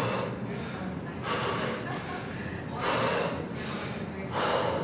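A man breathing hard after kettlebell snatches, a loud noisy breath about every one and a half seconds.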